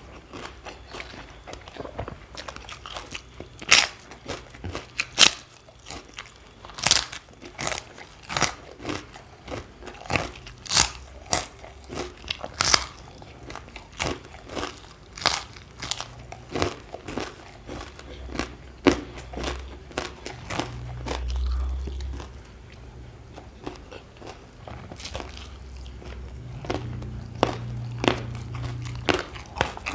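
Close-up biting and chewing of crunchy raw vegetables, with many loud, irregular crunches.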